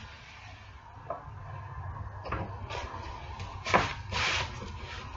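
A wood rasp scraping across a wooden piece in a few short strokes, mixed with knocks of the wood against the table as it is held and shifted.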